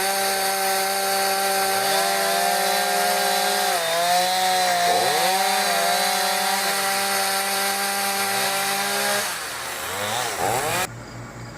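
Two-stroke gas chainsaw running at high speed through wood, its engine note dipping briefly several times as the chain loads up in the cut. The saw cuts off abruptly near the end.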